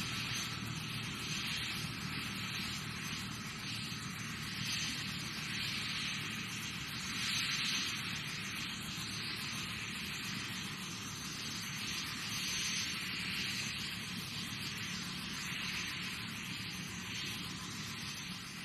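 Twin Huey (Bell UH-1N) helicopter running close by at the end of its approach and landing: a steady turbine hiss with a low hum underneath, swelling and easing every second or two. The level fades slightly toward the end.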